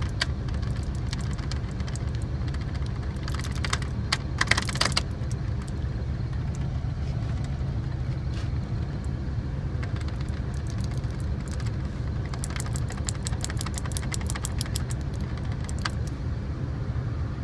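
1978 GMC Diplomat motorhome engine running steadily at high idle while the dual fuel tank toggle switch is wiggled back and forth, making bursts of quick clicks. The engine keeps running and does not cut out, a sign the short in the switch has been fixed.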